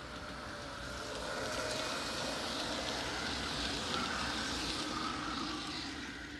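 G-scale model train, an NS 1800 electric locomotive pulling passenger coaches, running along the track: a steady rolling rumble with faint steady tones over it. It grows louder as the coaches pass close by and fades near the end.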